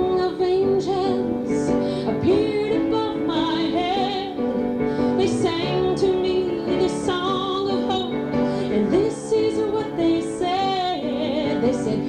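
A woman singing a ballad with vibrato over instrumental accompaniment, in a live cabaret performance taken straight from the club's sound system.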